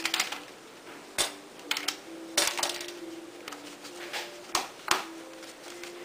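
Plastic housing parts of a Remington hair dryer being pried apart and set down on a wooden table: several sharp clicks and knocks at irregular intervals, the loudest about two and a half and five seconds in.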